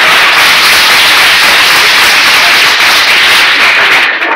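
Audience applauding, loud and distorted, cutting off suddenly near the end.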